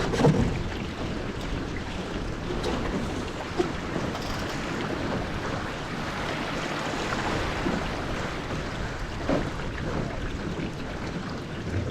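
Wind on the microphone and water rushing past the hull of a Melges 15 dinghy under sail, with a few short knocks.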